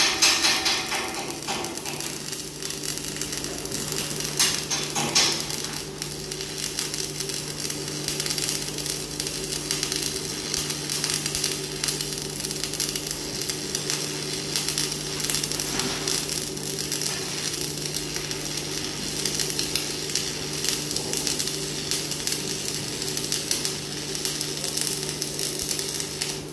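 Electric arc welding on mild steel pipe: the arc crackles and sizzles steadily, with a steady low hum underneath.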